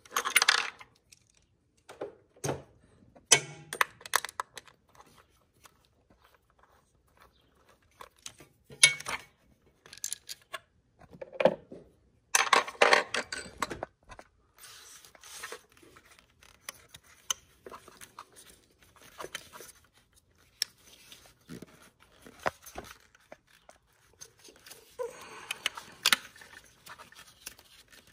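Irregular clicks, scrapes and rustling of hands and tools working among the plastic covers, wiring and ignition coil in a car's engine bay, with a few louder clusters of clatter.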